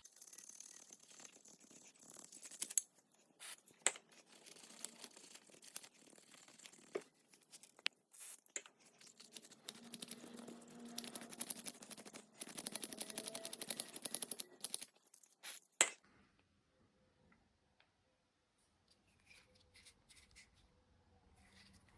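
Rapid, repeated scraping and scrubbing on the metal slide surfaces of a car's brake caliper carrier as they are cleaned. The scraping stops about 16 seconds in.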